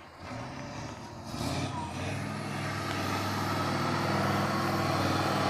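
Six-wheeled off-road trial truck's engine running under load as it climbs a sandy slope, at a steady pitch and growing louder from about a second and a half in.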